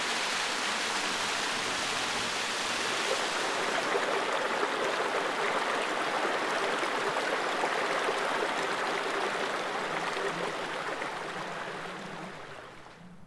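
Mountain stream rushing over rocks, a steady rush of water that fades away near the end.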